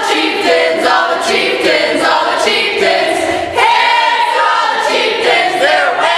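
A group of teenage girls singing together as a team, several voices at once in unison.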